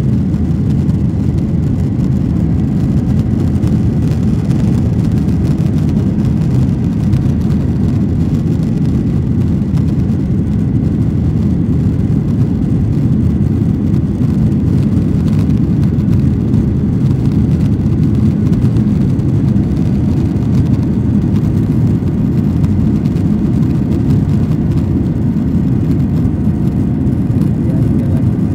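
Steady low rumble of an airplane, unchanging throughout.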